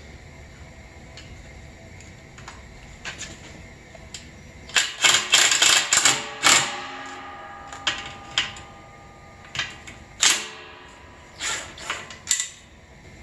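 Cordless impact driver hammering in short rattling bursts as it drives terminal screws in a metal electrical box: a run of rapid impacts about five seconds in, then single short taps, and another quick group near the end.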